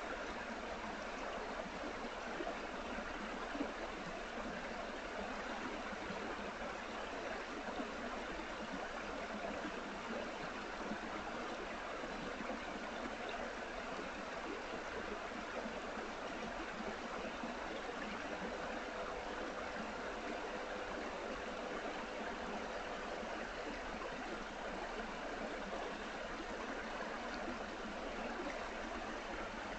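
Steady rushing outdoor noise with no change in level, with a faint held tone joining in for a few seconds past the middle.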